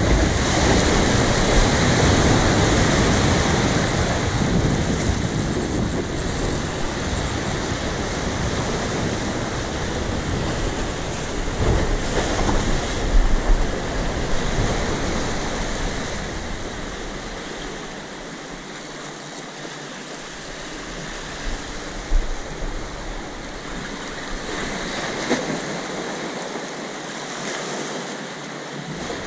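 Sea waves breaking and washing over rocks, with wind buffeting the microphone, louder in the first few seconds. A few brief knocks stand out near the middle.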